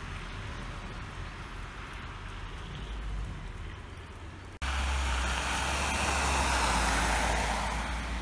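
Outdoor winter street ambience: a steady hiss over a low rumble. After an abrupt cut about four and a half seconds in, a louder rushing noise with a heavy low rumble swells and then eases off.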